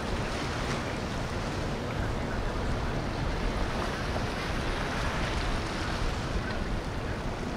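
Wind rumbling steadily on the microphone over the rush of water and boat noise on a river.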